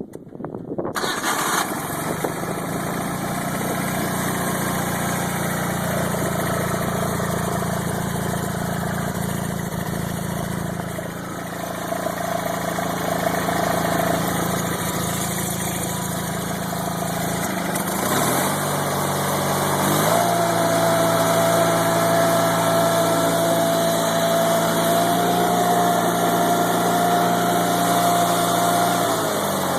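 Wheel Horse 520H garden tractor's Onan P220G air-cooled opposed-twin engine starting about a second in and running steadily. Its speed changes at about 18 to 20 seconds, and a thin steady whine sets in. The owner hears a slight knock in the engine that he had not noticed before and finds more noticeable at lower throttle.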